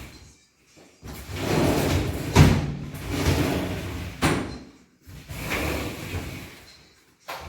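Aluminium sliding panel rolling along its track, pushed back and forth three times, with sharp knocks as it meets the frame.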